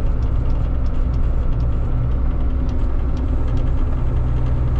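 New Holland TC56 combine's diesel engine running steadily, heard from inside the cab, with a constant low hum.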